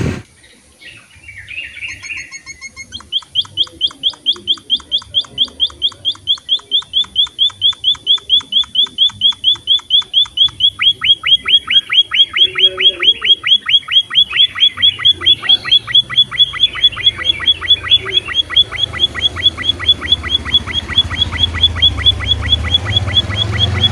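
Munia finch (emprit) calling: a few soft chirps, then from about three seconds in a fast, even run of short high notes, several a second, that keeps going.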